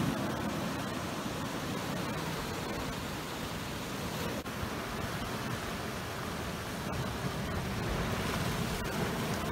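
Sea surf washing in and breaking over rough shoreline rocks: a steady rushing hiss that swells a little near the end.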